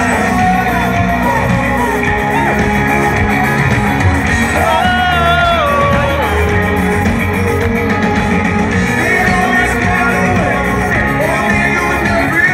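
Live Christian rock band playing over loudspeakers with sung vocals, heard loud and continuous from within the crowd, with yells from people close by.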